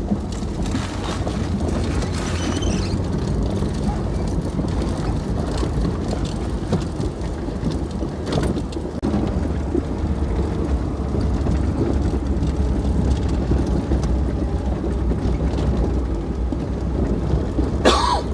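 An old Russian-made car running over a rough, muddy dirt track, heard from inside the cabin: a steady low engine and road rumble with scattered knocks and rattles from the shaky body.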